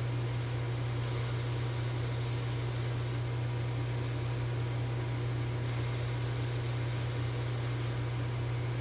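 Airbrush setup running: a steady, even airy hiss with a low constant hum underneath, as red paint is airbrushed onto a small taped-off taillight part.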